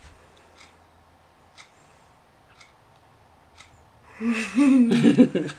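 A clock ticking once a second in a quiet small room. Near the end a person's wordless voice sounds for about a second and is the loudest thing heard.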